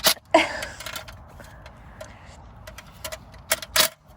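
Sharp clicks and knocks of hand tools and plastic dashboard parts being handled during car stereo removal: two loud strikes near the start, light ticking between, and two more loud strikes near the end.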